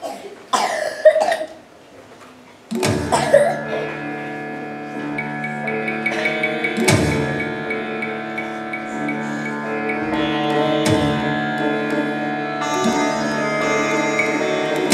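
Indian-style dance music starts suddenly about three seconds in, with a steady drone, plucked sitar-like strings and a deep drum beat about every four seconds. It is preceded by a brief loud noise in the hall.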